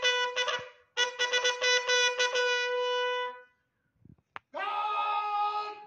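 Bugle sounding a salute call: quick repeated tongued notes that end on a held note about three and a half seconds in. Near the end comes a drawn-out shouted parade command.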